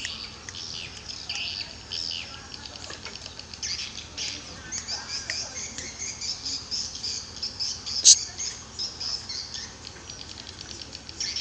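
Small birds chirping in quick, high-pitched twitters, with one sharp click about eight seconds in.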